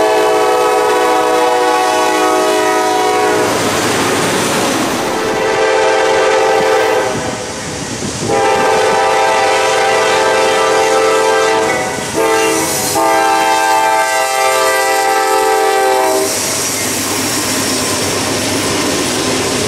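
Norfolk Southern diesel locomotive's multi-chime air horn: one long blast, then a long, long, short, long sequence, the grade-crossing signal. After that comes the steady rumble and clatter of the passing train.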